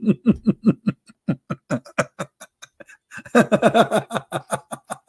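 A man laughing hard in rapid pulsing bursts. It fades for a couple of seconds in the middle and swells again after about three seconds.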